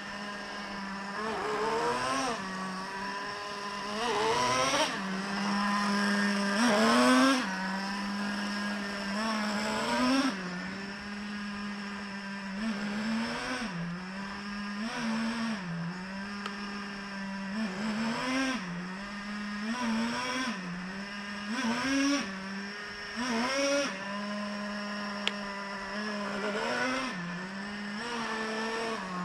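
Traxxas TRX 3.3 single-cylinder two-stroke nitro engine running on its second break-in tank. It holds a steady high idle and revs up briefly in short throttle blips every second or two. The owner says it feels like it is running fairly well.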